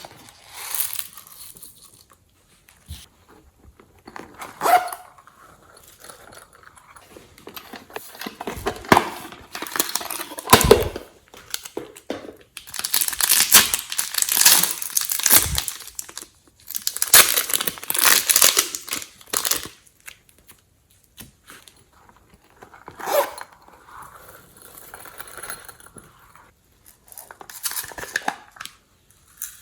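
Hands kneading and stretching glossy slime in irregular bursts, the longest two lasting about three seconds each in the middle.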